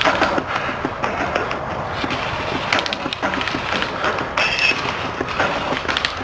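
Crunching and rustling of dry leaves and twigs underfoot, with scattered clicks from gear and movement. A brief high whistle-like tone sounds about four and a half seconds in.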